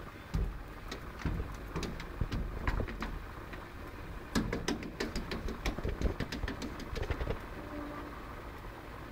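Cats' paws batting and thumping against a glass door: a fast, irregular flurry of sharp taps and knocks with heavier thumps, stopping a little before the end, over a steady low hum.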